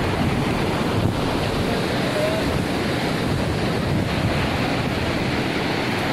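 Swollen, muddy river rushing over boulders, a steady loud rush of water mixed with wind buffeting the microphone. A faint short whistle sounds about two seconds in.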